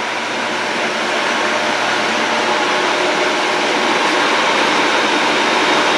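A 1948 Monarch engine lathe, run on 220-volt three-phase power, running under its motor with its chuck spinning: a steady mechanical hum and whir that grows gradually louder.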